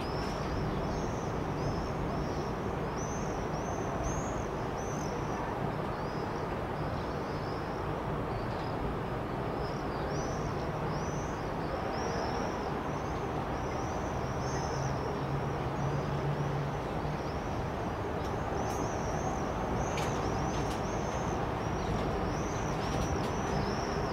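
Birds calling over and over in short, high chirps, above a steady outdoor background noise.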